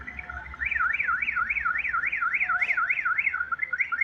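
A warbling electronic alarm, its tone sweeping steadily up and down about three times a second. It starts about half a second in and breaks into short chirps near the end.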